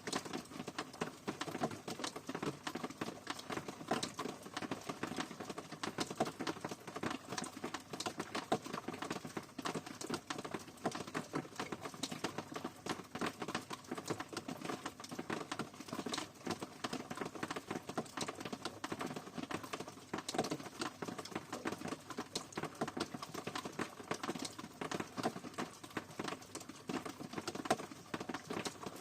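Steady rain pattering: a dense, irregular run of drop impacts that keeps on evenly without let-up.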